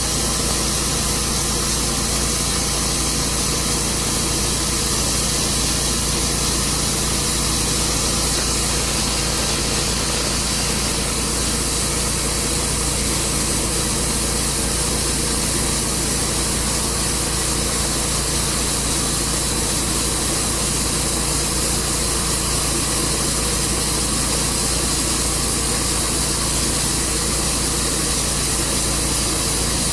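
Portable sawmill running steadily, its engine note even and a loud hiss over it.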